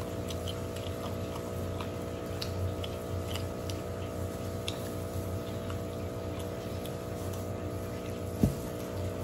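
Eating by hand in thin plastic gloves: soft clicks and crinkles of gloved fingers working rice and chewing, over a steady low hum, with one sharp thump near the end.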